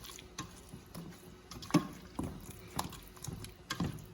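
A spoon stirring mixed vegetables into thick gravy in a skillet, knocking against the pan now and then in uneven clicks and clunks, the loudest a little before halfway through.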